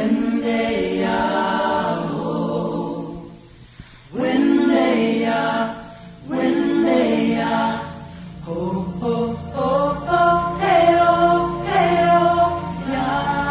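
Slow unaccompanied singing in long held phrases, with short breaks for breath about four, six and eight seconds in.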